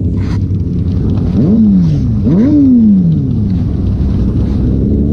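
Motorcycle engine running low and steady, then revved twice: the pitch climbs quickly and falls back about a second and a half in and again about a second later, before settling back to a steady low running.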